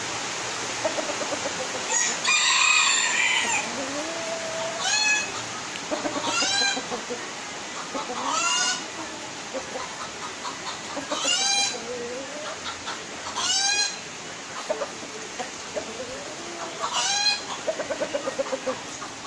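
Chickens clucking and giving short, arching squawk calls about every two seconds, with lower pulsed clucks in between, over a steady hiss of rain.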